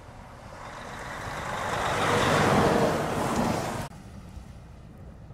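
A vehicle passing close by on the snow-covered interstate: its tyre and engine noise swells for about two seconds, then stops abruptly about four seconds in.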